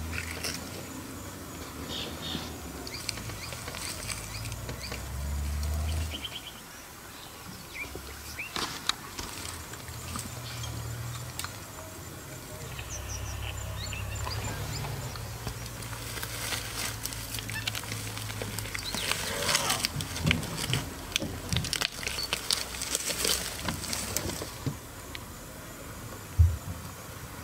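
Lion biting and pawing at a pangolin rolled into its armour: scattered clicking and scraping of teeth and claws on the hard scales with rustling of dry grass, busiest in the second half, over a low steady rumble. One sharp knock near the end.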